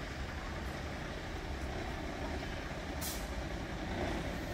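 Steady rumble of city road traffic, with a short hiss about three seconds in.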